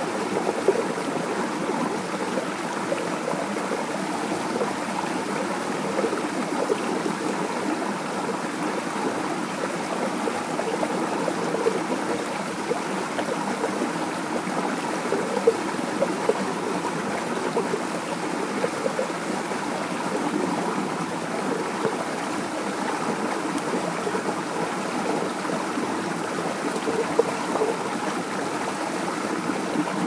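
Small creek running over a low rock step into a shallow pool: a steady rush of water with small irregular splashes.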